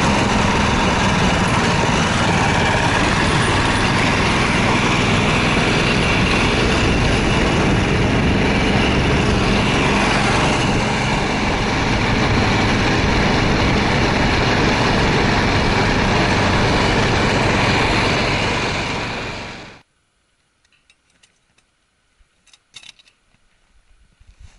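Small engine of a tracked snow vehicle running steadily under way, heard from the sled it tows, with rumbling and scraping over the snow. It cuts off abruptly about 20 seconds in, leaving only a few faint clicks and knocks.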